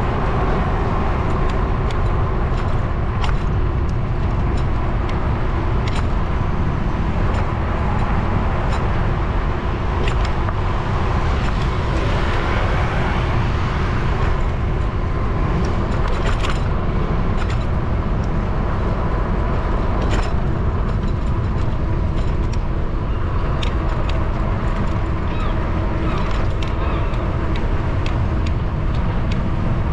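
Wind rushing over the microphone of a camera on a moving bicycle, with car traffic passing on the road alongside. Scattered sharp clicks and rattles come through the rumble.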